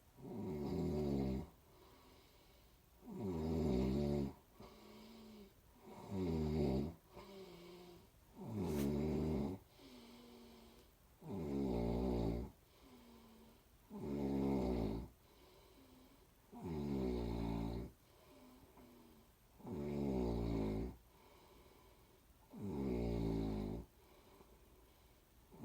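A person snoring steadily in sleep: about ten snores, one every two and a half to three seconds, each a low buzzing draw of breath, with fainter breaths between some of them.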